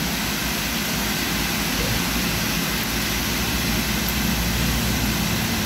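Steady rushing background noise with a low hum underneath, even in level throughout.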